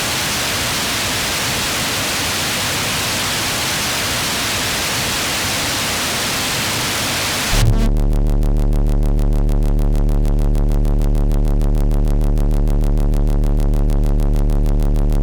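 Electronic noise wash, a steady full hiss like white noise, for about seven and a half seconds. It then cuts suddenly to a louder, deep synthesized bass drone with steady low tones and a fast fluttering pulse, part of an electronic rap track's production.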